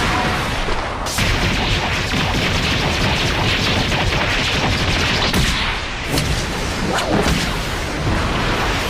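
Anime battle sound effects: a loud, sustained rush of explosion-like noise that swells about a second in, with several sharp cracking impacts in the second half.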